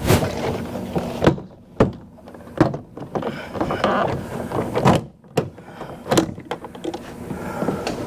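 Plastic retaining clips of a 2018 Nissan Rogue's driver's door trim panel popping loose as the panel is pulled off the door: about six or seven sharp snaps spread out, with the panel scraping and rustling between them.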